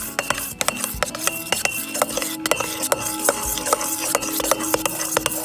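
Metal spoon stirring and scraping pink-tinted PVA glue in a stainless steel bowl, with many quick irregular clinks of spoon against bowl and a faint ringing from the metal. It is the glue being mixed with contact-lens solution until it thickens into slime.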